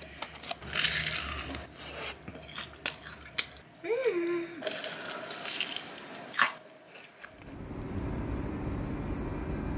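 Close-up handling of crispy fried chicken in a paper takeout box: scattered clicks and rustles as pieces are picked up, with a short murmured exclamation about four seconds in. About seven seconds in a steady background wash takes over.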